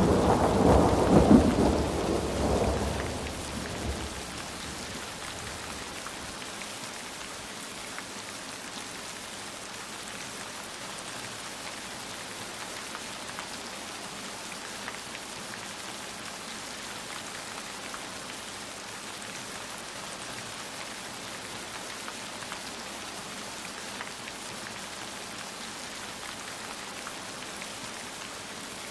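A thunder rumble dying away over the first few seconds, then a heavy downpour of rain falling steadily.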